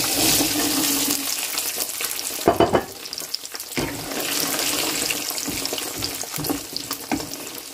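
Peeled garlic cloves hitting hot mustard oil in a frying pan: the oil sizzles up at once and keeps crackling as the cloves are stirred with a wooden spatula. A couple of sharper knocks come about two and a half seconds in.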